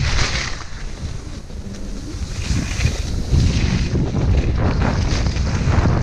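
Wind rumbling on an action camera's microphone while skiing fast, with the hiss and scrape of skis carving through snow swelling on each turn, several times.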